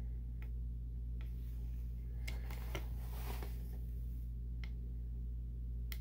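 Small tactile pushbuttons on a Digilent Basys 3 FPGA board clicking as a finger presses them, about six single clicks spaced irregularly, over a steady low hum.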